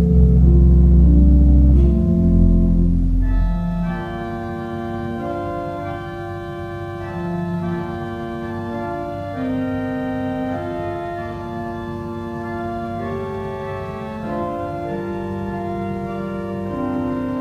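Church organ playing slow, sustained chords. For the first three and a half seconds the chords are loud with deep bass notes. It then moves to a quieter, brighter sound of held notes played on the upper keyboard.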